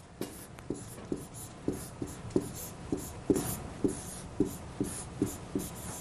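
Pen stylus writing on the glass of a large interactive touchscreen display: a run of short taps and scratches, about two or three a second, as each stroke of the handwriting lands on the screen.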